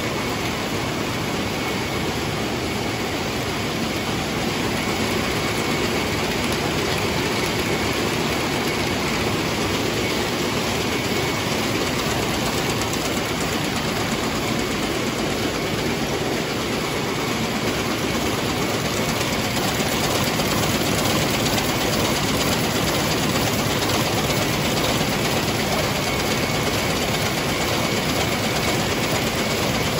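Water-jet weaving looms running: a loud, dense, unbroken mechanical din with a faint steady high tone in it.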